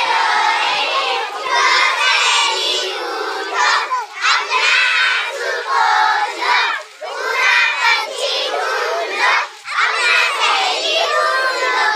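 A group of young girls chanting a ring-game song together, loud, in phrases of a second or two with short breaks between them.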